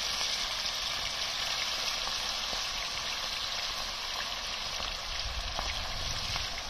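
Masala-coated fish pieces frying in hot oil: a steady sizzle with a few faint pops.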